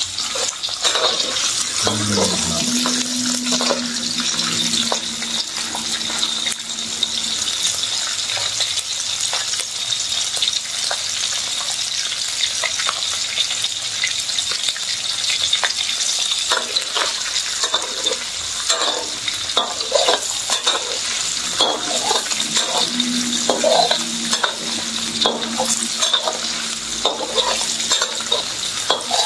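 Pieces of pekasam (fermented fish) frying in hot oil with shallots, garlic and chilli in a steel wok, sizzling steadily, cooking until crisp. A metal spatula scrapes and clinks against the wok again and again as it is stirred.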